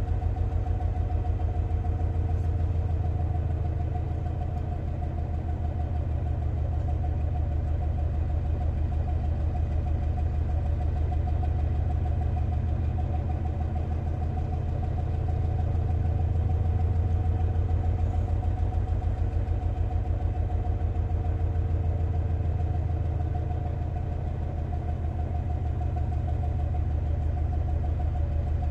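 2TE10L diesel locomotive's two-stroke opposed-piston 10D100 diesel engine idling while standing: a steady, evenly pulsing low rumble with a steady whine above it.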